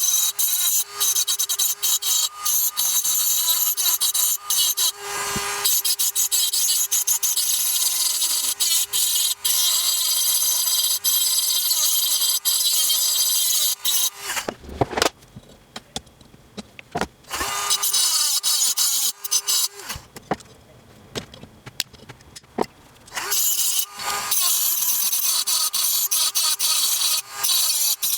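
Dremel rotary tool with a disc grinding material off an airsoft gearbox shell to make room for a Gate Titan control board: a steady high-pitched whine with a hiss of grinding. It stops twice for a few seconds past the middle.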